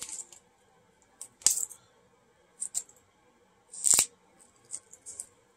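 Padded mailer being opened by hand: a run of short, sharp crinkling rustles of paper and plastic packaging with pauses between, the loudest about four seconds in.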